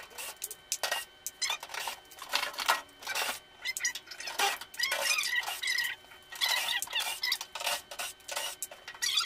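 Cordless drill-driver spinning screws out of a tumble dryer's sheet-metal back panel in several short runs, with clicking and rattling of screws and metal between them.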